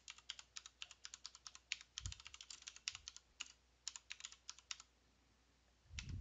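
Faint computer keyboard typing: a rapid, uneven run of keystrokes as a command line is entered, stopping about a second before the end, then a soft low sound at the very end.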